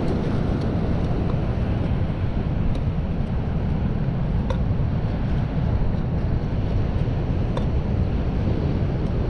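Strong wind buffeting the microphone, a steady low rumble, with a few faint ticks.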